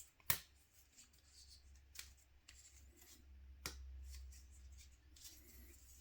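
Hard plastic toy-playset panels being handled and pressed together: one sharp snap about a third of a second in, then two lighter clicks about two and three and a half seconds in, as one-time-assembly snap-fit parts lock into place.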